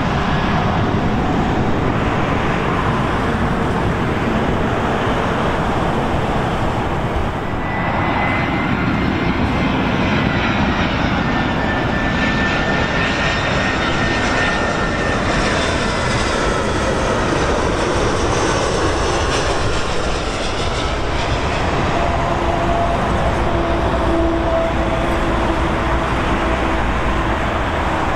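Jet airliners on final approach: a steady engine roar, first a Boeing 777-200LR close to touchdown, then an Airbus A320-200, whose engine whine glides slowly in pitch as it passes overhead.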